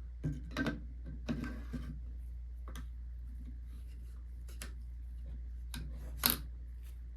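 Scattered metallic clicks and a brief scrape of AR-15 rifle parts being handled and fitted together during reassembly. The loudest click comes about six seconds in, over a steady low hum.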